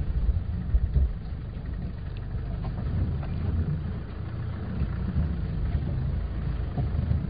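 Land Rover safari vehicle's engine running, a steady low rumble with a few faint knocks and rattles.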